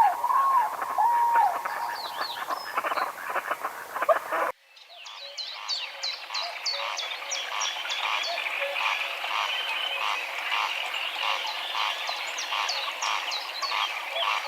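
Greylag geese calling, with many quick high chirps of small birds over them. About four and a half seconds in, the sound cuts off abruptly and gives way to a steady chorus of rhythmic calls, about two a second.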